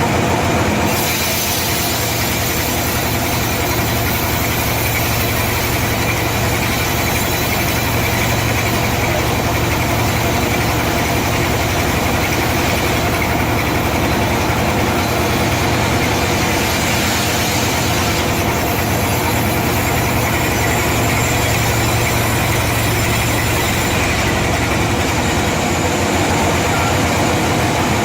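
Sawmill machinery running steadily: a constant engine hum, with a high hiss from the saw that comes in about a second in, shifts a couple of times and falls away near the end.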